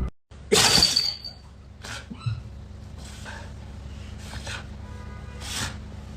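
A loud shattering crash about half a second in, with a short bright ring in it, followed by a few faint rustling bursts over a low steady hum.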